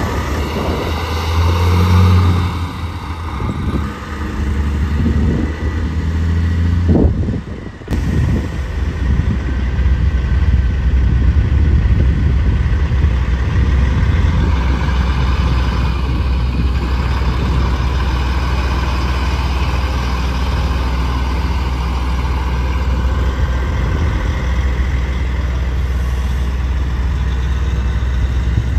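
Heavy road traffic, trucks going by with a loud, steady low rumble and engine noise; the sound briefly drops out about eight seconds in.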